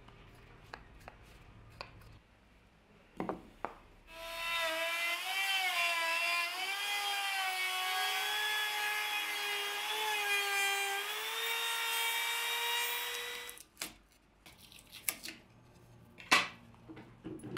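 Compact trim router running at high speed and cutting into a pine block along a template, a high whine whose pitch wavers with the load over a hiss of cutting. It starts about four seconds in and stops abruptly about ten seconds later, with a few sharp knocks of wood on the bench before and after.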